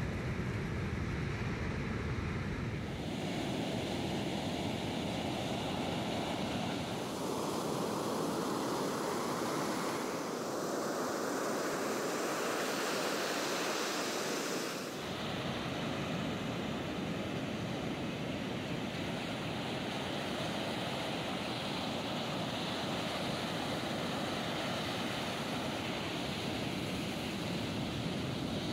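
Heavy ocean surf breaking and whitewater washing in over the shallows, a continuous rush of noise with wind buffeting the microphone. The sound changes abruptly a few times.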